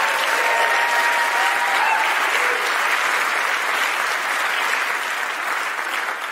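Audience applauding, with one voice holding a cheer during the first two seconds; the clapping eases off slightly near the end.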